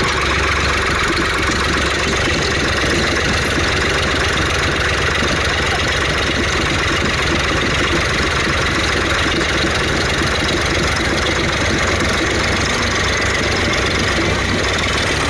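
Two Swaraj tractors' diesel engines, a Swaraj 855 and a Swaraj 744 XT, running steadily as the hitched tractors pull against each other in a tug-of-war. The sound is a loud, continuous, even engine run with a deep hum.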